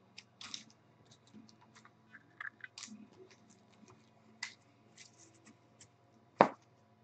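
Trading cards and packs handled by hand on a table: scattered light clicks and scrapes, with one sharper knock about six and a half seconds in.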